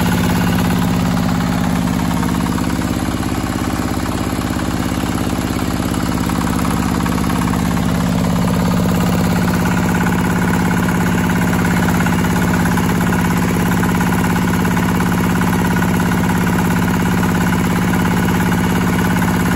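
Single-cylinder diesel engine of a 13 hp tracked tractor running steadily at an even speed while the machine drives across grass.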